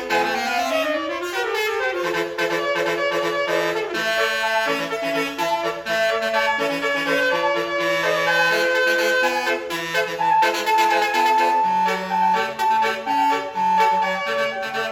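Basuri telolet multi-tone bus horn playing a melody of held notes. It opens with two tones sliding past each other in pitch, then steps through the tune.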